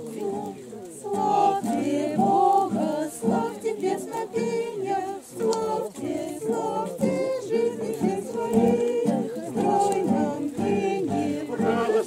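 A mixed group of men's and women's voices singing a song together in unison, accompanied by a strummed acoustic guitar.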